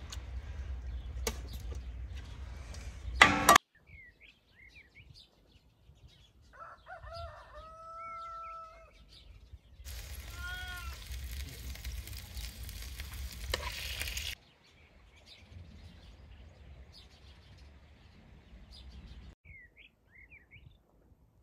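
A rooster crows: one long held call, then a shorter crow a couple of seconds later, with small birds chirping around it. A sharp knock comes a few seconds in, over a low rumbling noise that cuts in and out.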